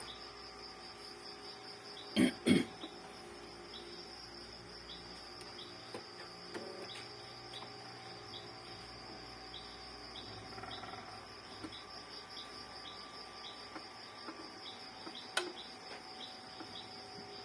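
Crickets chirping steadily in a fast, even pulse. Two loud knocks come about two seconds in, and a single sharp click comes near the end.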